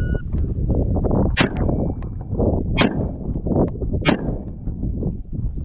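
Shot-timer beep, then three rifle shots about 1.3 seconds apart, with wind rumbling on the microphone.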